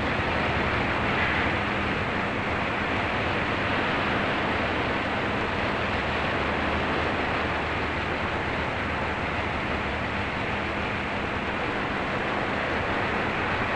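Steady rushing noise of wind and churning sea on a moving ship, with a faint low hum underneath.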